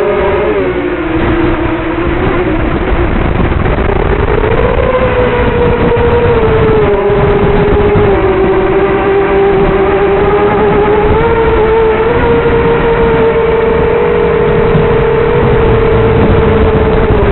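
Racing quadcopter's four brushless motors (Multistar Elite 2204-2300KV) spinning 3-blade 5x4.5 props, a loud buzzing whine whose pitch follows the throttle: it dips near the start, rises about five seconds in, and climbs again around twelve seconds.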